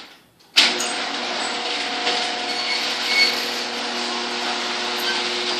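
Electric garage door opener running with a steady hum. It stops for about half a second at the start, then restarts with a sharp clunk and runs on evenly.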